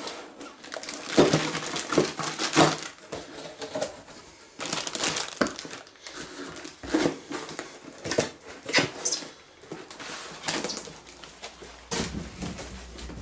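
Handling sounds of packing a boxed MIG/MAG welding torch hose package: plastic wrap rustling and irregular knocks of the cardboard box and its lid as it is closed and set into a carton.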